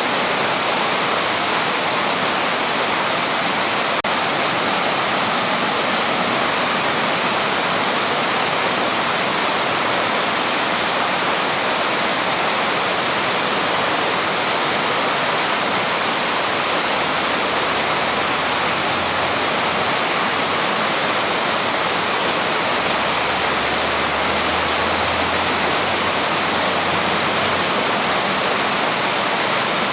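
Waterfall rushing steadily, a constant, even roar of falling water. A faint low hum joins in about halfway through and fades out near the end.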